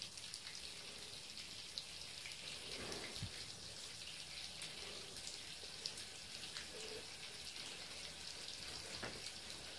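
Thin stream of water from a bathtub tap falling onto the tub floor, a steady fine splashing.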